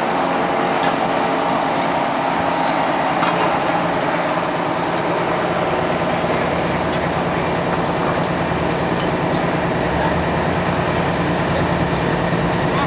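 Miniature railway locomotive's engine running steadily, with scattered light metallic clinks and clicks over it.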